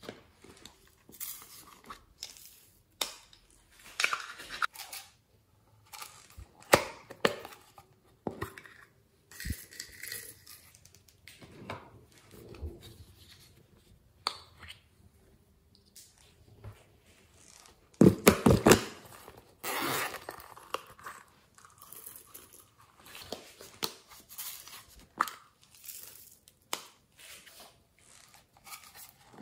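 Small plastic pots of glitter and sequins being handled: sharp clicks as lids are snapped open and shut, and short rustles as the glitter is shaken out onto slime. The loudest bout of rustling and clicking comes a little past halfway.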